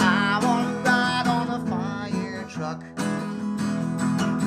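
Acoustic guitar strummed in a steady rhythm as accompaniment to a sung children's song, with a voice singing over it during the first second and a half.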